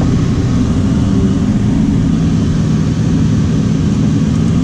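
Ferrari 458 Speciale's 4.5-litre V8 running steadily at low revs, heard from inside the cabin.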